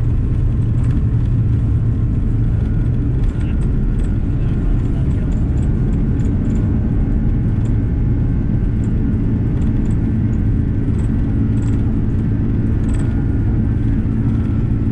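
Airbus A330 takeoff heard from inside the cabin: the engines run at takeoff power with a loud, steady low rumble through the roll down the runway and the lift-off, with light rattles.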